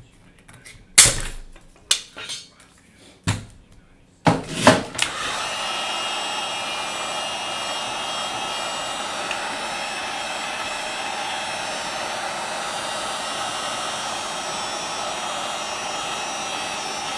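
A few sharp knocks and clatters, then about five seconds in a handheld hot-air blower switches on and runs steadily with an even blowing sound, heating the tablet to soften the adhesive holding the broken digitizer glass to the frame.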